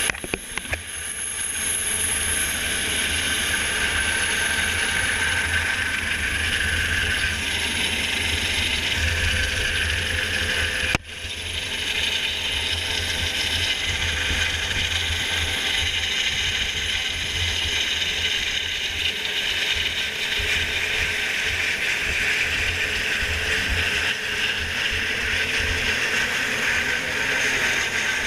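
Coast Guard helicopter hovering directly overhead: steady, loud rotor and turbine noise with a faint high whine and a fast low beat from the rotor. The sound cuts out for an instant about eleven seconds in.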